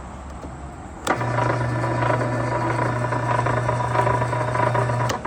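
Electric motor of a homemade wire-stripping machine, switched on with a click about a second in and running with a steady hum for about four seconds, then switched off with a click.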